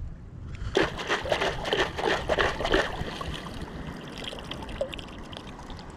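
Boots wading through a shallow stream: a quick run of sloshing splashes for about two seconds, then the steady trickle of the stream's water.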